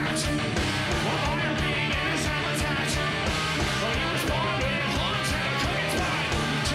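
Heavy rock band playing live: electric guitars and drums, with a steady, rapid drum beat and repeated cymbal crashes.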